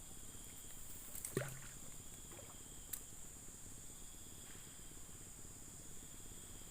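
A steady high-pitched insect drone over a faint background hiss. About a second and a half in comes a short falling swoop, and about three seconds in a single sharp click.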